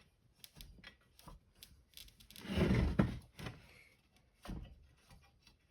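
Handling of metal gearbox parts: scattered light clicks, a short scraping rustle about two and a half seconds in, and a couple of soft knocks.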